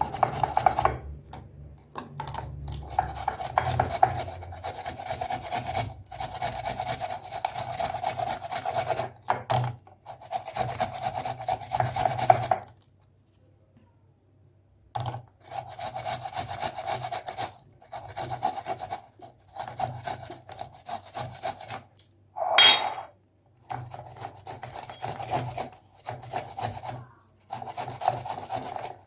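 Fresh ginger root being grated on a hand grater: runs of rasping scraping strokes, with a pause of about two seconds near the middle and one brief louder sound about two-thirds of the way through.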